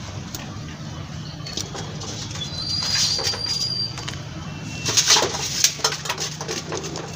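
Hands scraping and crumbling dry potting mix in a metal basin and pressing it into a plastic plant pot, with a cluster of crackly scrapes loudest about five seconds in. A bird gives one high, steady whistled note about three seconds in.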